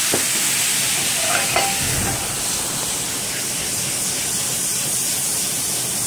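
Jameson whiskey sizzling and steaming in a hot skillet of chicken drippings as it deglazes the pan. A steady hiss, loudest in the first couple of seconds and then easing slightly.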